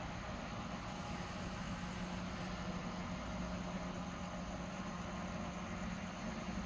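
Engine of a rail vehicle approaching from a distance along the track, running with a steady low hum and rumble.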